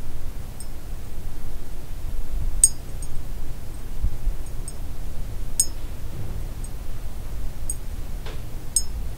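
A steady low rumbling noise with several small, sharp, high-pitched clinks over it, the clearest three about three seconds apart.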